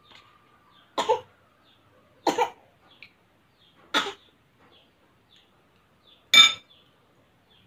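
Four short coughs, one to two seconds apart, the last the loudest.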